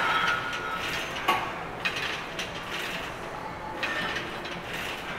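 Pec-deck chest fly machine being worked, its cable and pulleys running as the weight stack moves, with a few short clicks and knocks along the way.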